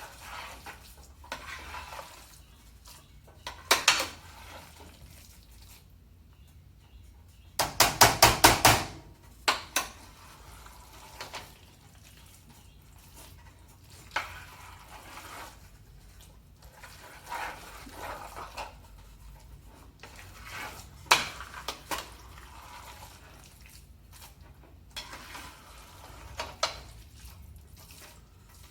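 A cooking utensil scraping and clinking against a pan while fried rice is stirred, in scattered strokes. About a third of the way in comes a quick run of about seven sharp knocks, the loudest sounds.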